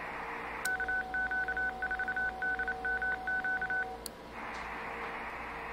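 Receiver hiss from the Xiegu X6100 is cut by a click about a second in. A rapid on-off beep keyed in a Morse-like pattern follows over a steady lower tone for about three seconds: the VARA HF modem's CW identification sent after the failed connect attempt, heard through the radio's monitor. A second click near four seconds is followed by the return of the receiver hiss.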